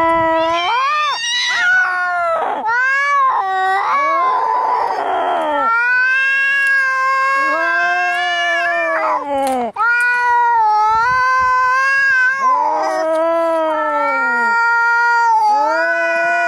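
Angry cats caterwauling as in a fight: long, drawn-out wavering yowls one after another, with a harsher, raspy cry about four seconds in.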